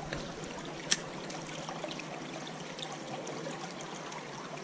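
Creek water running steadily over a shallow riffle, with one sharp click about a second in.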